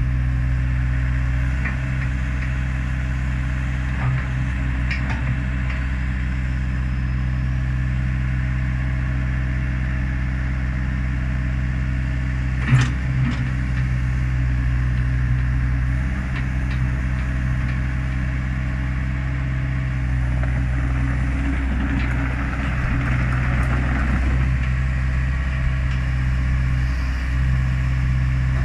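Hyundai R80CR-9 tracked excavator's diesel engine running steadily while the boom, arm and bucket are worked hydraulically. There is a single sharp metallic clank about halfway through, and a few seconds of louder hissing hydraulic noise later on.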